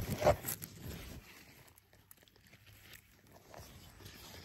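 Rustling and footsteps through long grass and squash vines. The brushing is loudest in the first second, then turns faint with scattered small clicks.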